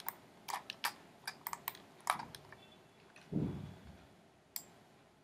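Computer keyboard and mouse clicking in quick, irregular taps for about two and a half seconds, then a short low thud about three and a half seconds in and a single click near the end.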